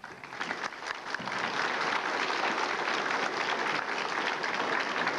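Audience applauding. The clapping starts suddenly, swells over the first couple of seconds, then holds steady.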